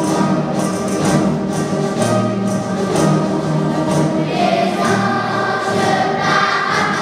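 Music with a choir singing, continuing steadily.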